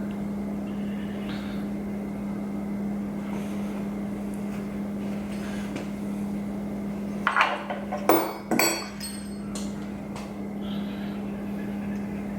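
A short cluster of sharp metallic clanks and clinks with a brief ring, metal tools or parts knocking together during transmission assembly, a little past the middle. A steady low hum runs underneath throughout.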